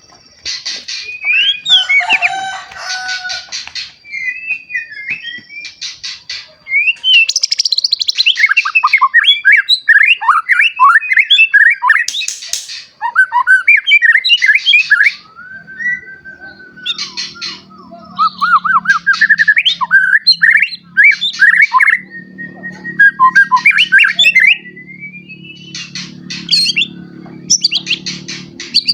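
Young white-rumped shama singing a long, varied song of whistled phrases that slur up and down, broken by rapid rattling runs of repeated notes. A low steady hum comes in underneath about halfway through.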